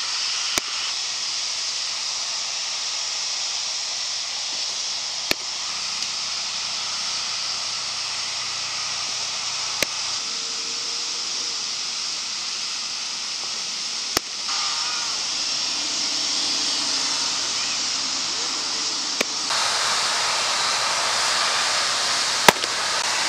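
Pitched baseballs smacking into a catcher's mitt: six sharp pops, one about every four to five seconds, over a steady outdoor hiss.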